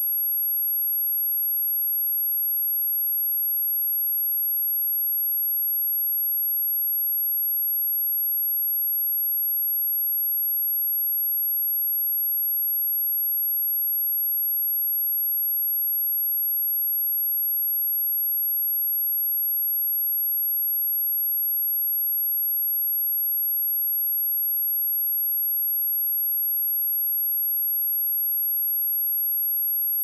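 Pure sine-wave test tone at 11484 Hz: a single high-pitched whistle held steady at an even level.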